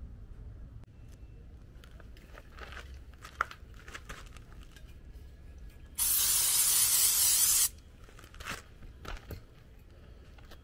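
Aerosol parts cleaner sprayed in one steady hissing burst of about a second and a half, cleaning the puttied scratch repair on the bumper. A few faint clicks and rustles come before and after.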